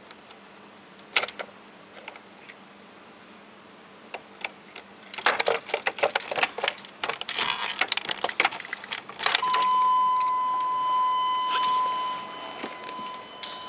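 Keys jangling and clicking for a few seconds, then a steady high tone starts and holds.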